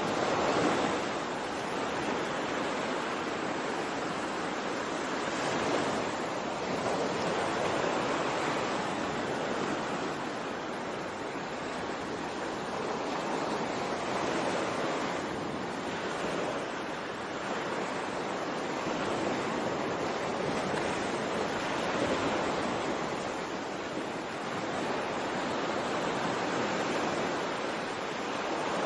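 Sea waves washing in: a steady rush of water that swells and eases every few seconds.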